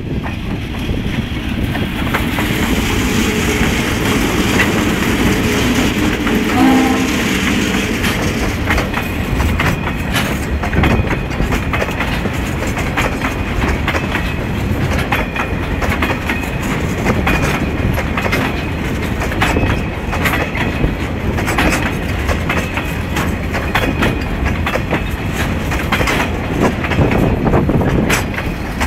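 Diesel-hauled milk train of tank wagons passing close by, the wheels clicking over rail joints in an uneven rhythm, with thin high squeals now and then. The locomotive's engine rumble is strongest in the first few seconds as it draws level, and a short horn note sounds about seven seconds in.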